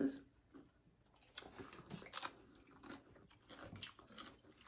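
Close-up chewing of loaded nachos, the tortilla chips crunching in the mouth. Little is heard at first, then irregular crisp crunches begin about a second and a half in.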